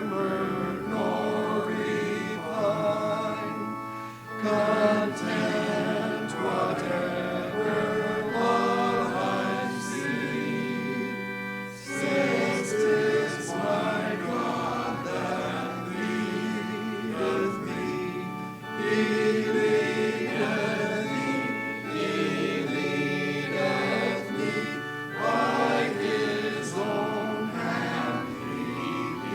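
A group of voices singing a hymn together over held instrumental chords, with brief breaks between phrases.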